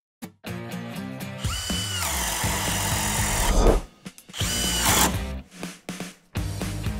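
Cordless drill driver spinning up with a rising whine and running for about two seconds, then a second, shorter run a little later, over background music with a steady beat.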